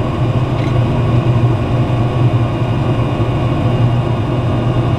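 Z Grills wood pellet grill running its start-up cycle: a loud, steady hum from the combustion fan and auger motor while the auger feeds hickory pellets into the burn pot.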